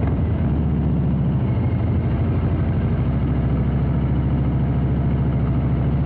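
Harley-Davidson Breakout's Milwaukee-Eight 117 V-twin running through a Rinehart exhaust, holding steady low revs with an even, low-pitched beat.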